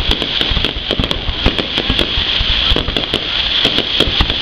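Fireworks display: many sharp bangs of bursting shells in rapid, irregular succession, several a second, over a steady hiss.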